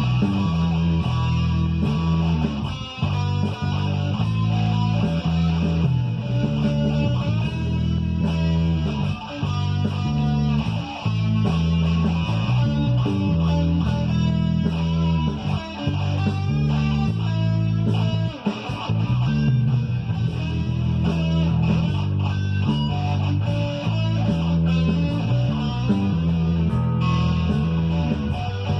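Electric guitar playing over a rock backing track with bass and a steady beat.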